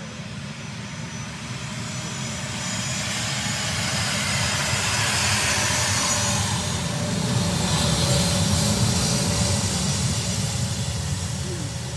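Military aircraft engines coming in low over the highway on a landing approach, growing louder to a peak about eight seconds in, then easing slightly.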